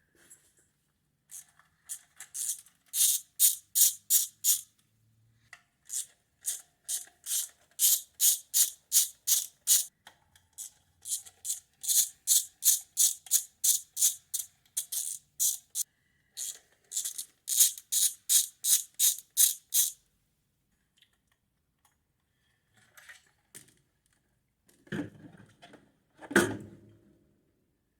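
Ratchet wrench clicking in several long runs of quick strokes, about three clicks a second, as bolts are worked loose or tight; near the end, two duller knocks of metal parts being set down.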